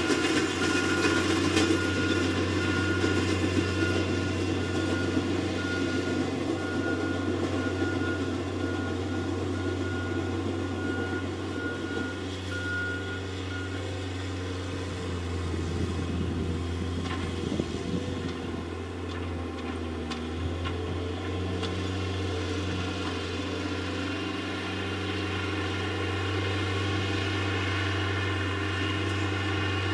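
Engine of a heavy work machine running steadily as it moves across the field, with a faint, evenly repeated high beep through the first half.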